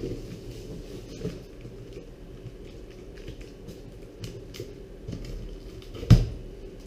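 A box being opened and handled by hand: scattered light clicks and rustles of cardboard and packing, with one sharp thump about six seconds in.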